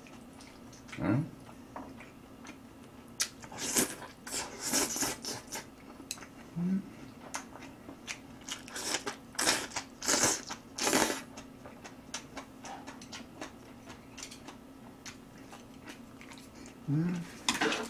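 Close-miked eating of stir-fried instant noodles: wet slurps and chewing, a busy run of short mouth noises between about three and eleven seconds in, then sparser chewing. A few brief low hums break in.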